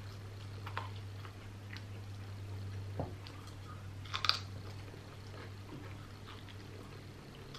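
A man biting and chewing a bone-in piece of fried chicken, with faint wet mouth clicks and one crunch about four seconds in. A steady low hum runs underneath.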